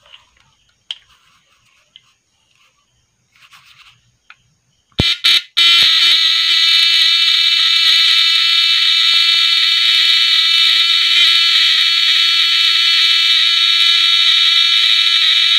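Homemade battery-powered fish stunner (transformer wound in a 16, 18 and 23 gauge wire combination) under test: a few sharp clicks about five seconds in as the output clip touches the terminal, then a loud, steady electrical buzz while the output draws sparks at the terminal bolt.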